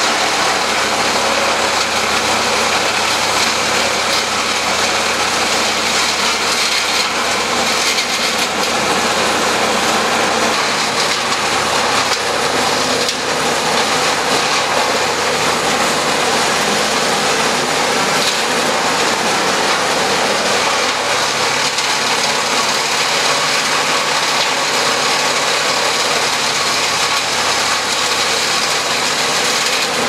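Bandit hand-fed wood chipper running, its engine and cutter giving a loud, steady noise.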